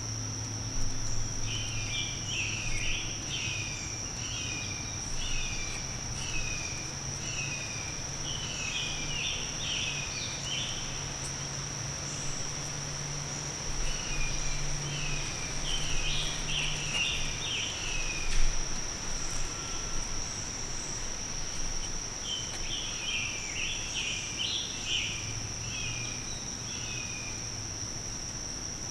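A steady, high-pitched insect drone of crickets or katydids, with a bird singing three phrases of quick repeated notes over it and a faint low hum underneath.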